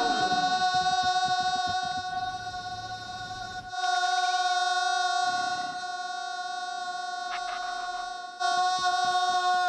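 Cartoon voices holding one long shouted "Ooooh!" on a single unwavering note.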